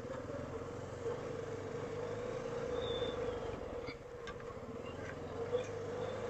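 Honda ATV engine running at low speed, a steady drone whose pitch wavers slightly.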